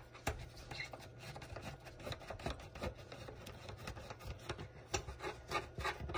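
Screwdriver turning a long screw out of an engine cover: a run of small, irregular clicks and scraping rubs, a few louder clicks near the end.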